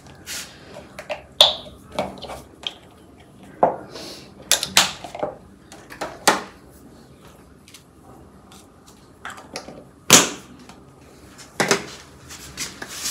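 Scattered clicks, taps and brief rustles of small objects being handled in a small room, irregular and spaced out, with the sharpest knock about ten seconds in.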